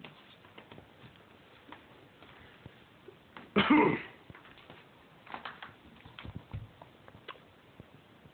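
A single short, loud breath sound from a person, like a cough or sniff, about three and a half seconds in. A few faint clicks follow.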